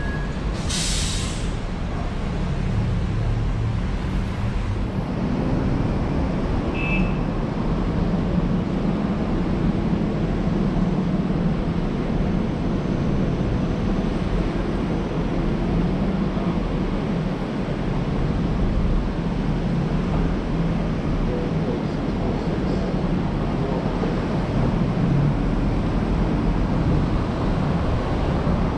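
Steady low rumble of a car driving in city traffic, with a brief hiss about a second in.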